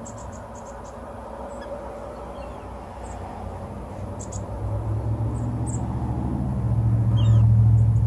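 A motor vehicle passing, its low rumble swelling through the second half and loudest near the end. Short, high chips of small birds are scattered through it.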